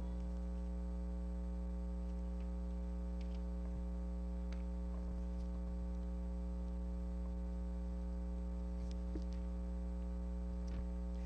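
Steady electrical mains hum: a low, even buzz with many overtones, with a few faint clicks scattered through it.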